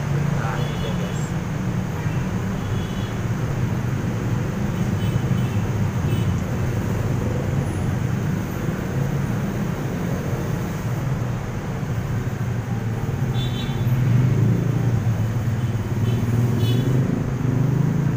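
Steady low rumble of background noise, with a few faint small clicks from the metal parts of a flashlight being handled.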